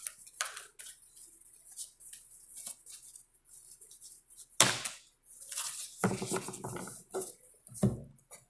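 Tarot cards being handled: shuffled and drawn with a string of light clicks and rustles, and one sharp slap of a card or the deck on the table about halfway through.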